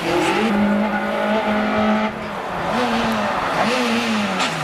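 Citroën C2 rally car's engine held at high revs, easing off about two seconds in, then revving up and down twice before the pitch falls away near the end as the car slows into a hairpin.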